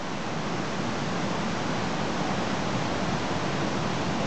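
Steady rushing of a fast-flowing creek swollen by flooding, an even hiss with no breaks.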